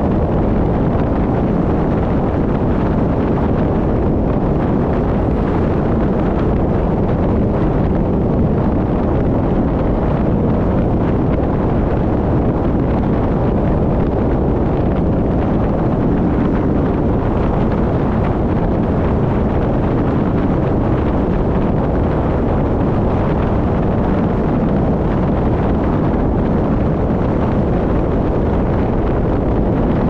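Wind buffeting the microphone and road noise from a moving car, a steady, even noise with no distinct events.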